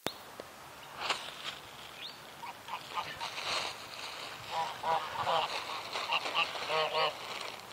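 Domestic geese honking, a few scattered calls at first, then runs of short honks in quick succession in the second half.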